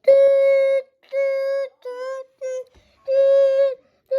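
Fire alarm speaker sounding a loud alert tone at one steady pitch, in five beeps of uneven length, after the pull station has been pulled.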